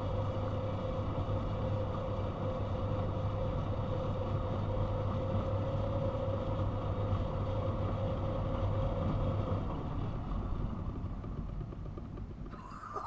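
Miele washing machine running at the end of its main wash: a steady hum with a steady whine over it, both dying away about ten seconds in.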